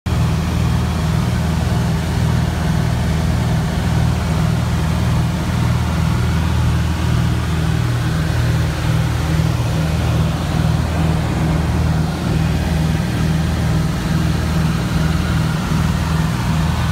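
Cessna O-2A Skymaster's twin Continental IO-360 piston engines, one pulling at the nose and one pushing at the tail, heard from inside the cabin in cruise flight. Steady deep drone with a regular pulsing throb, over cabin air noise.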